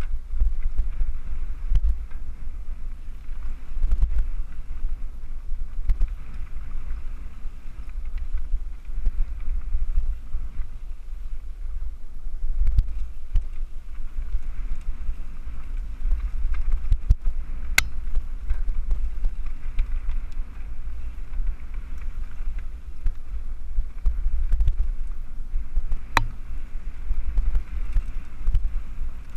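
Mountain bike riding fast down a dirt singletrack, recorded on a helmet camera: wind buffeting the microphone in a constant low rumble over the hiss of tyres on the trail, with two sharp clicks from the bike.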